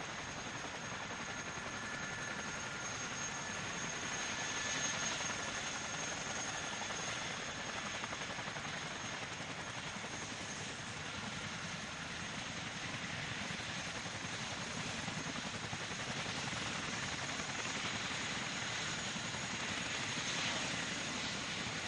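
CH-47 Chinook tandem-rotor helicopter taxiing with both rotors turning: steady rotor noise over a constant high whine from its twin T55 turboshaft engines.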